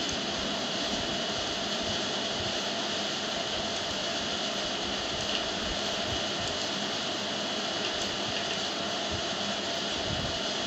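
Steady mechanical background noise: an even whoosh with a faint hum, unchanging throughout.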